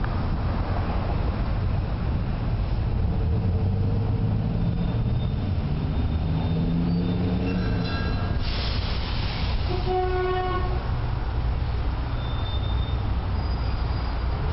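Steady low rumble of a large passing vehicle, with a short burst of hiss a little past halfway and a horn sounding briefly about ten seconds in.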